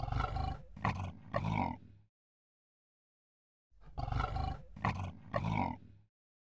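Lion roaring: a run of three deep calls, then the same run again after a pause of about a second and a half.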